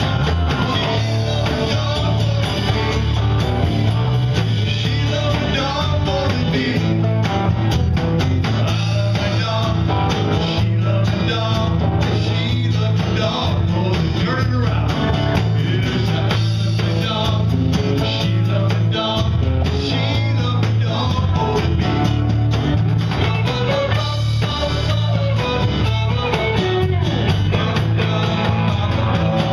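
Live band music with a strong, steady bass line: electric bass, acoustic and electric guitars and a drum kit playing together without a break.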